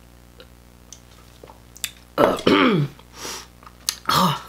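A woman drinking from a glass, with a few faint swallowing clicks, then about two seconds in a few loud voiced sounds from her throat: a burp after the drink.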